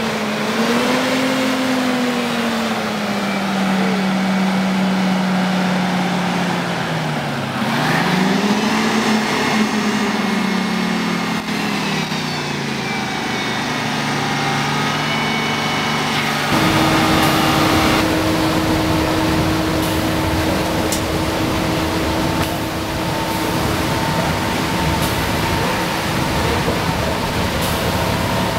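Detroit Diesel 6V92TA two-stroke V6 diesel of a 1994 Nova Bus Classic pulling away, its pitch rising and falling as it accelerates. About halfway through, the sound changes to the same bus heard from inside while cruising: a steady engine drone with a constant whine and faint clicks.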